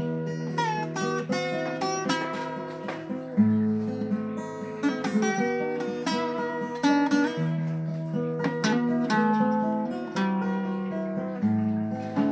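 Acoustic guitar music: a picked melody of ringing notes over sustained bass notes, the bass changing about every four seconds, as the instrumental intro of a song.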